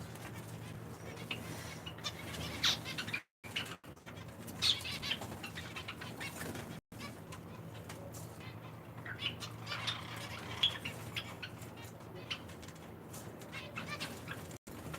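A flock of small cage finches, zebra finches and Java sparrows, chirping and calling in many short, high notes, over a steady low hum. The sound cuts out completely for a moment four times.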